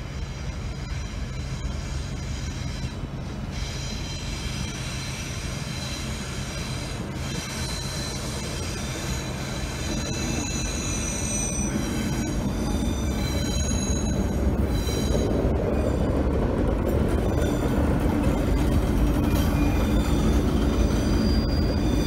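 Freight train hauled by diesel locomotive ACN 4715 rolling past, a train of hopper wagons following it. A steady low engine hum gives way to wagon wheels rumbling on the rails, getting louder about halfway through, with high-pitched wheel squeals coming and going.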